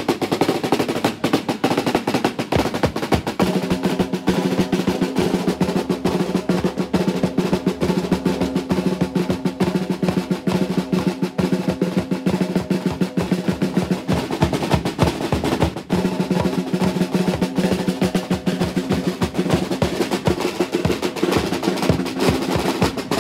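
Street drums, including a bass drum, beating a fast, unbroken roll-like rhythm: the traditional drumming that accompanies the Nicaraguan gigantona dance.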